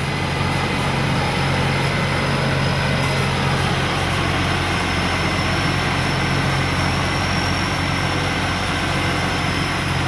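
Combine harvester engine running steadily, a deep low hum with a thin high whine over it.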